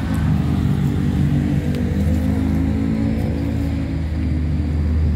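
Diesel engine of a working hydraulic excavator running steadily, its pitch wavering slightly as the load changes.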